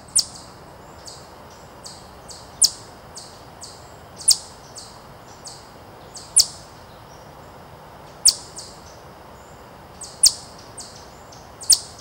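Eastern chipmunk giving its alarm chip call: a sharp, high note that drops quickly in pitch, repeated about every two seconds, with fainter chips in between.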